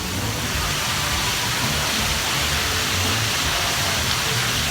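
Loud, steady rush of falling water from an indoor water feature, an even noise that covers the whole range.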